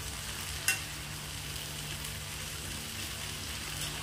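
Chopped yardlong bean pods (bora) sizzling as they fry in mustard oil in a steel kadai, stirred with a spatula, with one sharp clink of the spatula against the pan under a second in.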